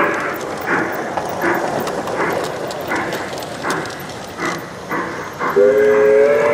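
Garden-scale model train's sound effects: rhythmic chuffing, about one puff every three-quarters of a second, then a few seconds from the end a multi-tone whistle sounds and holds.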